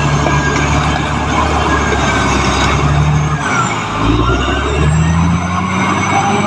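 Caterpillar D6R XL bulldozer's diesel engine running under load with a steady low drone, the note dropping about three and a half seconds in and climbing again a second or so later, with a higher whine that dips and rises along with it.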